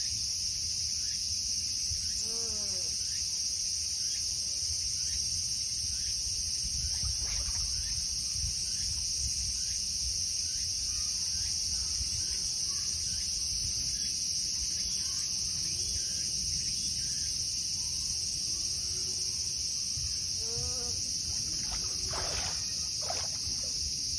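Steady high-pitched drone of an insect chorus, with two short chirping calls, one about two seconds in and one near the end.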